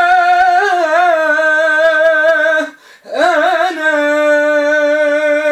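Male singer holding the long final note of an Arabic song, with a wavering ornament about a second in. Midway the note breaks off for a moment, comes back with a quick run of wavering turns, and is held steady again.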